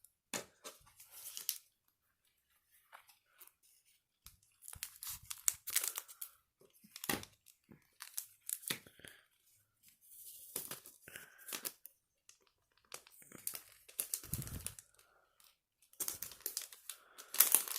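A Pokémon trading card booster pack's foil wrapper being torn open and crinkled in irregular rustling bursts, with a short pause a few seconds in and the loudest crackling near the end.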